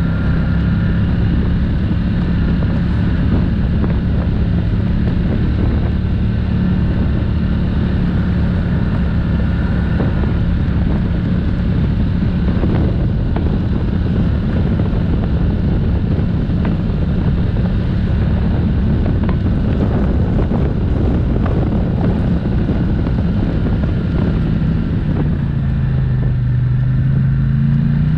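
ATV engine running steadily while riding along a dirt trail. Near the end its pitch dips and then rises again as it slows and picks back up.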